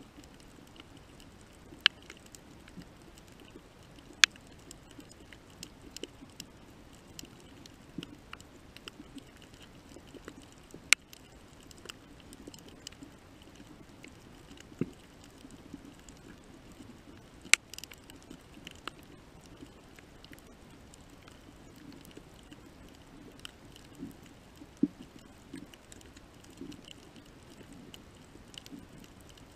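Underwater coral-reef ambience: scattered sharp clicks and crackles over a faint steady hum, with a few louder snaps.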